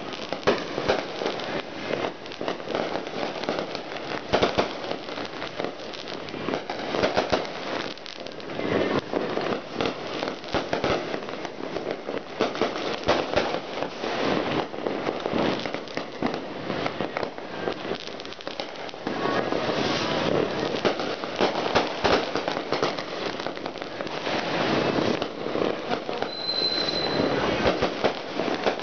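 Fireworks and firecrackers going off in a dense, unbroken crackle of many overlapping bangs, with a brief high whistle near the end.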